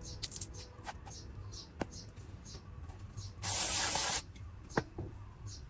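One short spray hiss lasting under a second, about two-thirds of the way in, among light scratchy ticks and a few sharp clicks from handling.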